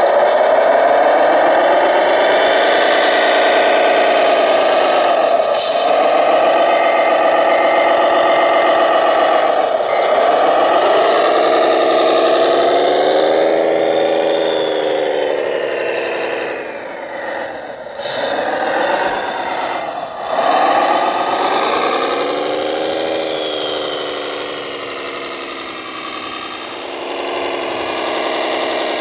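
Radio-controlled model truck running, a steady motor whine that rises and falls in pitch with the throttle, with a rattle underneath. The sound dips briefly twice a little past the middle and is quieter near the end.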